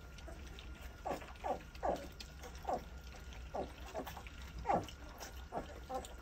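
A litter of six-week-old North American Mastiff puppies eating together from a trough, with slurping and about ten short squeaks and grunts that each slide down in pitch.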